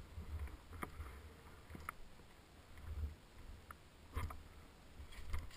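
Deep powder snow swishing under a rider sliding downhill, with uneven surges of low wind rumble on the microphone and a few sharp knocks.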